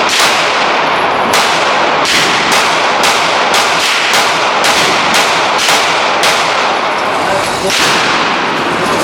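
A gun firing a quick string of about a dozen shots, roughly two a second, with a longer pause before a final shot near the end. Each shot leaves a ringing, echoing tail.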